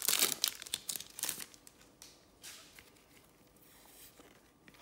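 Foil wrapper of a trading card pack torn open and crinkled, densest in the first second and a half, followed by a few faint rustles as the cards are handled.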